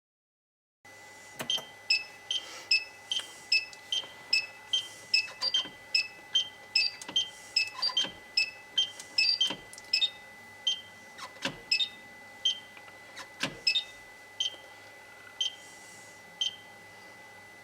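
Aftermarket turn-signal ECU sounding short, high electronic clicks, meant to imitate a flasher relay. About two or three a second at first, then slower and irregular after about ten seconds. A few sharper mechanical clicks are mixed in, over a faint steady high tone.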